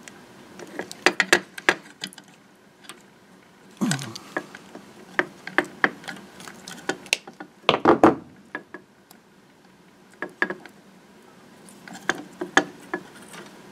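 Irregular clicks and clacks of a hand wire crimper and a blue insulated female spade terminal being worked and handled while re-crimping a terminal for a refrigerator compressor start relay, with the loudest cluster about eight seconds in.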